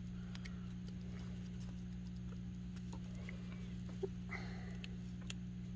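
Glue stick rubbed and tapped on paper, giving faint scraping and a few small clicks, over a steady low electrical hum.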